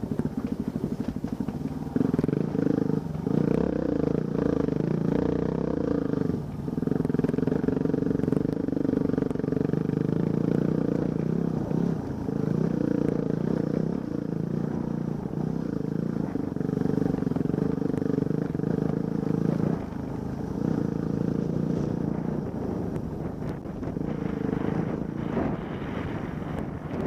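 Off-road vehicle engine running while driving over rock. The revs pick up about two seconds in and rise and fall for a few seconds, then hold fairly steady and ease off somewhat later on.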